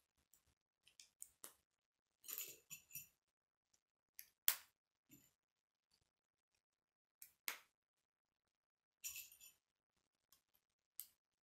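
Plastic K'nex pieces being handled and snapped together: scattered sharp clicks and light clinks with quiet gaps between, the loudest a single sharp snap a little before halfway through.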